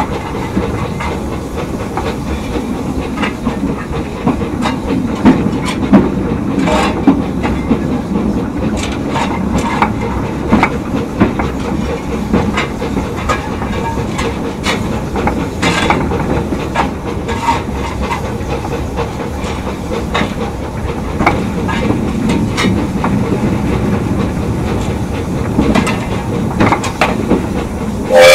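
Narrow gauge steam train under way: a steady rumble of wheels on track with irregular clicks and knocks from the rail joints and a hiss of steam.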